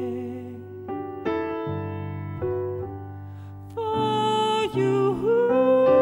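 Slow piano ballad: a piano plays sustained chords, and about four seconds in a voice joins on long held notes.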